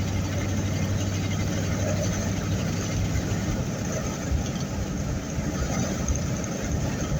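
A vehicle driving, heard from inside the cabin: steady engine and road rumble, with a low hum that eases after the first couple of seconds.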